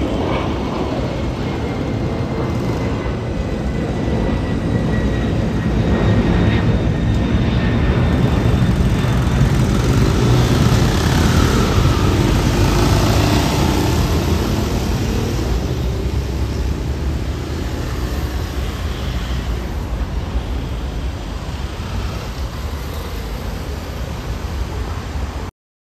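Jet airliner climbing overhead after takeoff. Its engine roar builds to a peak around the middle and then slowly fades, with a thin whine that drops slightly in pitch early on.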